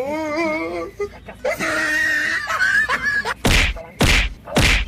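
A wavering, wailing voice, then from about three and a half seconds in three loud thuds about half a second apart, kicks landing on a body lying on the ground.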